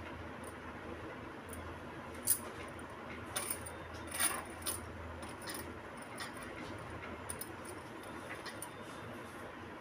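Glass bangles on a wrist clinking a few times, the sharpest clinks in the middle, over a soft rustle of thin net fabric being handled and a low steady hum.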